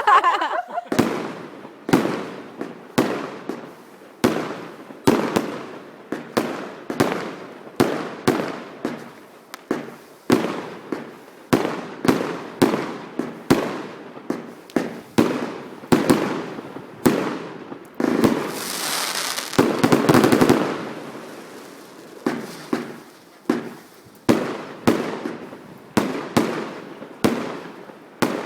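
Fireworks finale barrage: a steady run of loud bangs, about one or two a second, each echoing away. Past the middle comes a couple of seconds of dense hissing crackle.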